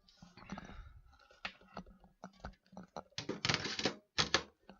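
Scattered clicks and knocks of computer hardware being handled and fitted inside a PC case, with a longer scraping rustle about three seconds in.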